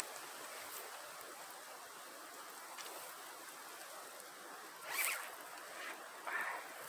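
Faint steady background hiss, broken by two short rasping swishes, one about five seconds in and a smaller one about a second later.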